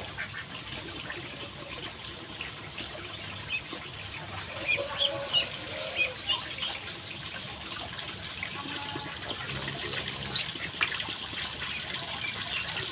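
Young poultry giving short, high peeps, bunched about a third to halfway through, over a steady trickle of spring water.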